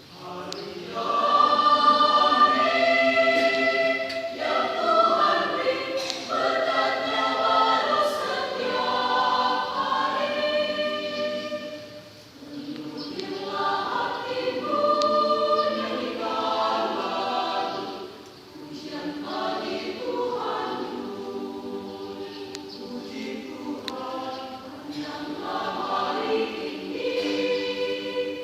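Church choir singing a sacred song in several voice parts, in sustained phrases with brief breaths between them.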